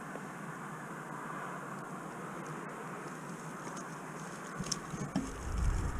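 Wind on the microphone: a steady rushing, with low buffeting that sets in near the end.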